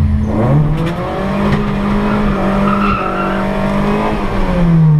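Turbocharged Ford Escort engine pulling hard at high revs under full-throttle acceleration on a drag-strip run, heard from inside the cabin. The pitch climbs in the first second, holds high, and drops near the end as a gear is changed.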